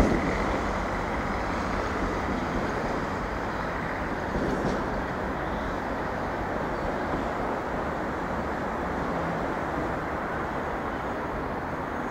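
Irish Rail Plasser & Theurer track maintenance vehicle running slowly along the line, a steady rumble of its diesel engine and wheels, with a brief click on the rails at the start and again about four and a half seconds in.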